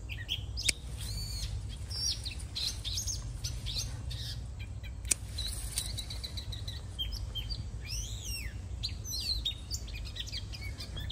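Several small birds chirping and whistling over one another, with two sharp snips about a second in and again near the middle, from scissors cutting string bean pods off the vine.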